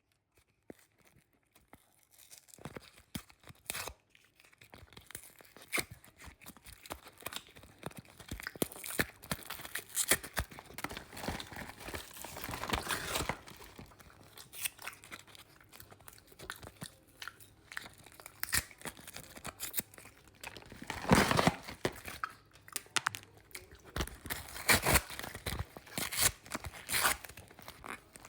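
Flaky paratha being torn apart by hand and eaten with daal, giving crackly tearing, crunching and chewing sounds in short irregular bursts. The loudest tear comes about two-thirds of the way through.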